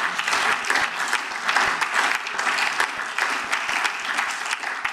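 Applause from the members of a parliament: many people clapping steadily.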